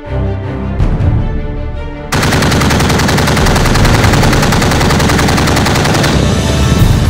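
Music, then about two seconds in a remote weapon station's machine gun opens fire in a long, rapid automatic burst that carries on through the rest.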